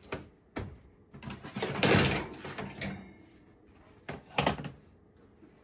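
Oven door and baking pan being handled: a knock near the start, a scraping, sliding sound lasting about a second about two seconds in, and another knock a little after four seconds.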